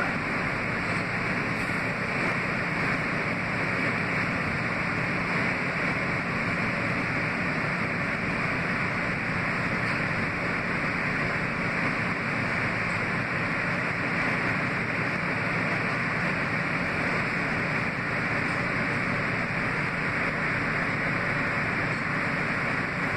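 Kawasaki R160B subway train with Siemens propulsion running at steady speed, heard from inside the car. A constant rush of wheel-on-rail and air noise with a faint steady hum underneath.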